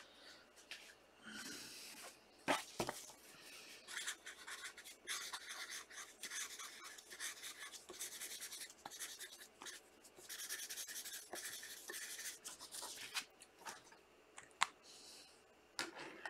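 A pen scratching on paper or plastic in short, faint strokes, with a few clicks. The pen is nearly out of ink and is being worked to get it writing.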